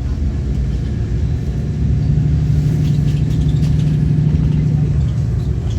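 City bus engine running steadily, heard from inside the bus as a low drone, with faint rattles.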